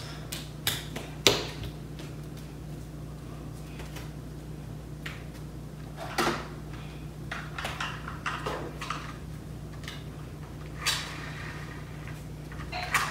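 Steady low hum of a computer running flat out under a FurMark GPU stress test, with scattered clicks and knocks, the loudest about a second in.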